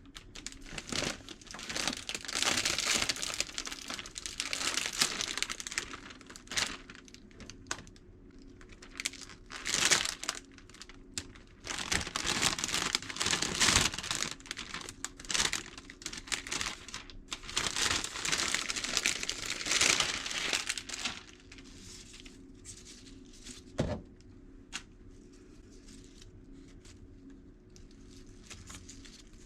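Packaging being crinkled and handled in repeated bursts of rustling, dying down to quieter handling with a single knock near the end. A faint steady hum runs underneath.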